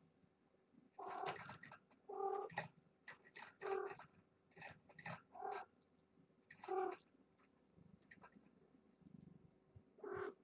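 A cat meowing repeatedly in short pitched calls, about eight of them. There is a pause of a few seconds before the last one.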